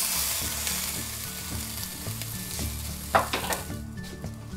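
Marinated pork neck steak sizzling as it is laid on the hot grate of a preheated Severin PG8560 electric table grill. The sizzle starts suddenly and dies down over about four seconds, with a sharp click about three seconds in.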